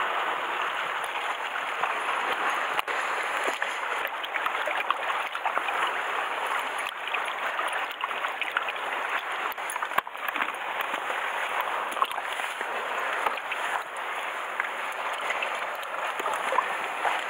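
Steady wash of sea water surging against shore rocks, with a few light knocks scattered through it.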